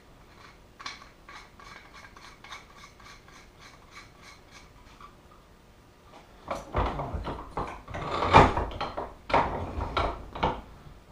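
Hand work on motorcycle fork parts: a run of light, even clicks, about four a second, then louder irregular metal knocks and scraping in the second half, loudest a little past eight seconds in.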